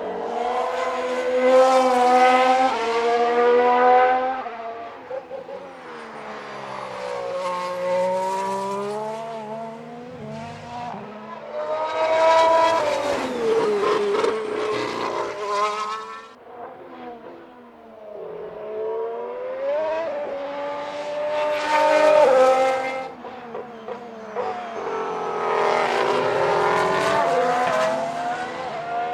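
Formula 1 cars' 1.6-litre turbocharged V6 hybrid engines at speed, going by one after another in about five passes. The pitch steps and glides with gear changes and drops as each car passes.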